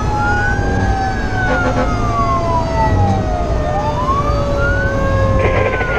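Fire engine siren wailing, rising and falling about every three and a half seconds over the engine's low rumble, heard from inside the cab. A second, lower siren tone slides slowly down underneath it.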